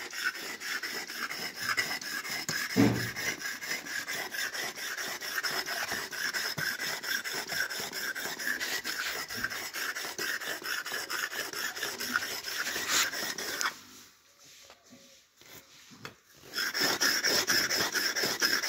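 Steel blade being honed back and forth on a sharpening stone: quick, even rasping strokes, with a low thump about three seconds in and a pause of about three seconds near the end before the strokes start again.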